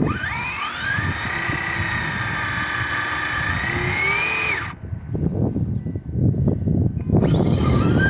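Electric motor and drivetrain of a Traxxas Slash 2wd RC drag truck whining under full throttle: a rising whine that climbs quickly, holds, rises a little more and cuts off suddenly after about four and a half seconds. A second rising whine starts near the end.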